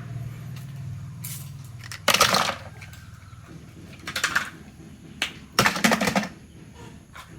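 Small hard objects clattering and knocking several times, the loudest about two seconds in, over a low steady hum that fades out about halfway through.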